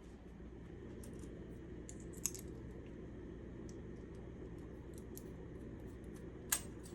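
Faint, scattered small clicks and taps from handling small hardware parts, over a low steady room hum, with two sharper clicks about two seconds in and near the end.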